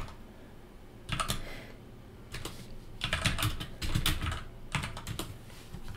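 Computer keyboard typing in short bursts of keystrokes, about one cluster a second, as a shell command is entered.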